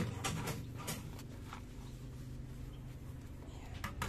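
Soapy hands scrubbing the plastic drip tray and grate of a Donlim KF-6001 espresso machine: a few short scrapes and knocks in the first second, then softer rubbing.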